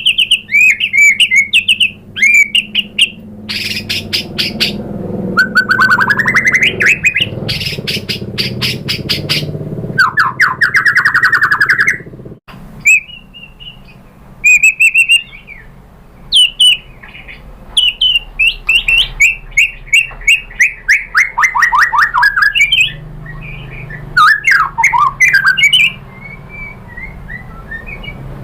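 White-rumped shama (murai batu) singing a loud, varied song with almost no pause: fast rattling trills of clicks, rising and falling whistled sweeps, and quick chattering note series.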